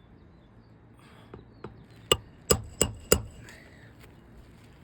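Hammer driving a roofing nail into an asphalt shingle: two light taps, then four sharp blows about a third of a second apart.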